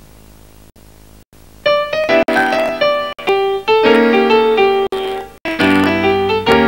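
The tail of the previous music fades out and the sound briefly drops out twice. Then piano music starts about a second and a half in, playing a bright melody over chords.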